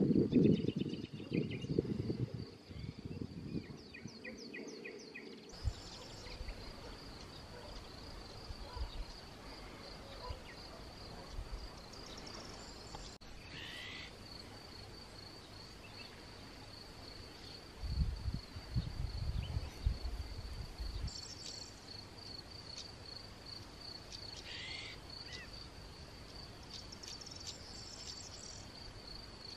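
A cricket trilling steadily with a fast, even pulse, with short falling bird calls now and then. Bursts of low rumbling noise fill the first few seconds and come back briefly about 18 seconds in.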